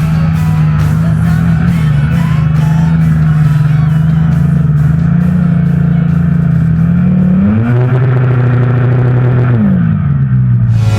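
Two-stroke snowmobile engine running at steady revs, revving up about seven and a half seconds in, holding briefly, then dropping back about two seconds later. Music plays underneath.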